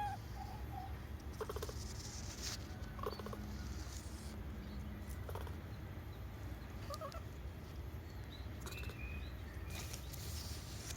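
A few short squeaky animal calls, some in quick pairs, with scattered clicks and knocks over a steady low rumble.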